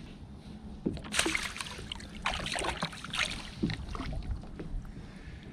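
Wind rumbling on the microphone aboard a kayak on the sea, with irregular scuffing, splashy rustles in the middle.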